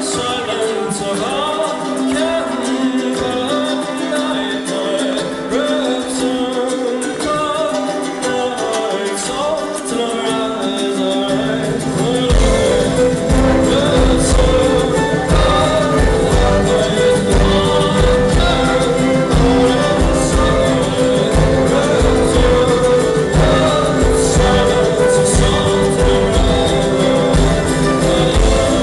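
Live brass-and-strings folk band: trumpet and brass horns over strummed ukulele and mandolin. About twelve seconds in, a steady low beat comes in and the music grows louder and fuller.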